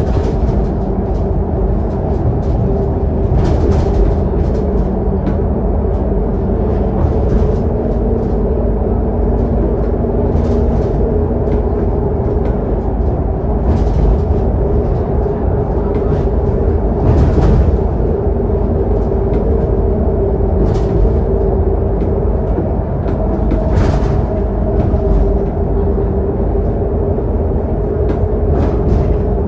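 Inside the lower deck of a Scania K280UD double-decker bus cruising at speed: its rear-mounted five-cylinder diesel engine runs with a steady low rumble and hum under road noise, and brief knocks from the bodywork come every few seconds.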